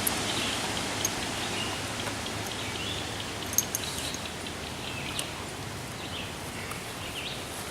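Outdoor ambience: a steady hiss of breeze, with faint bird chirps and a few small clicks.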